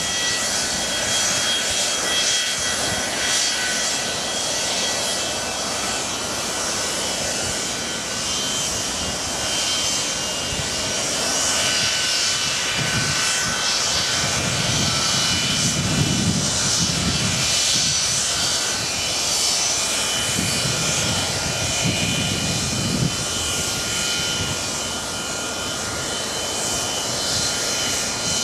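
Boeing 737-200's Pratt & Whitney JT8D turbofan engines running at taxi power as the jet rolls slowly toward the listener: a steady high whine over a jet hiss. A deeper rumble swells up twice around the middle.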